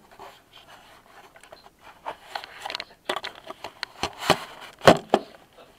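Irregular knocks, scrapes and rustling from someone moving about and handling things close to the microphone. The sharpest knocks come about four and five seconds in.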